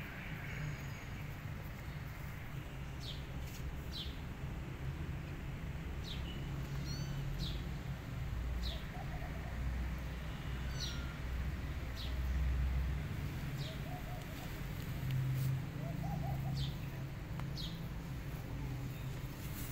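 Small birds chirping: about a dozen short, high chirps that drop in pitch, scattered irregularly, over a steady low rumble that swells a couple of times.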